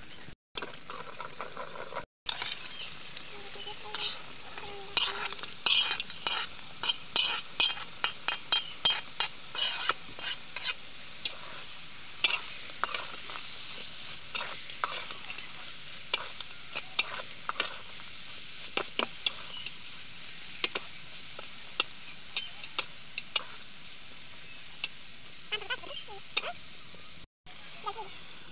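Oil and spice paste sizzling in a pan with small taki fish (spotted snakehead), stirred with a metal spatula that clinks and scrapes against the pan. The clinks come quickly for the first ten seconds or so, then more sparsely over a steady hiss.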